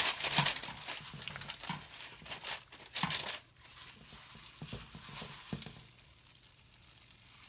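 Parchment paper crinkling as it is handled, loud and crackly for the first three seconds or so, then fainter.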